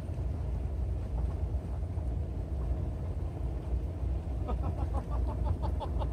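A steady low rumble throughout. About four and a half seconds in, a quick run of rapid, high chirping pulses joins it for about a second and a half.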